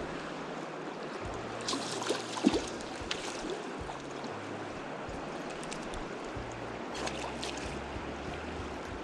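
Steady rush of flowing river water, with a few short, sharper sounds about two seconds in and again near seven seconds.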